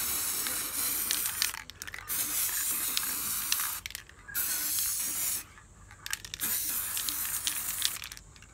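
Aerosol can of gloss black spray paint hissing in four bursts of one to two seconds each, with short pauses between.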